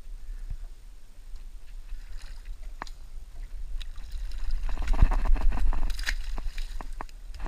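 Water splashing hard at the surface beside the boat, a fish thrashing there, loudest from about five to six and a half seconds in. A few small clicks and knocks are scattered around it, over a steady low rumble.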